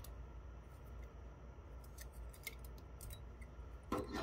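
Small plastic and metal parts of a Kodak DX3900 camera's LCD display assembly being handled and pried apart by hand. There are faint light clicks, then a louder clatter about four seconds in as the display panel comes away from its metal backlight frame.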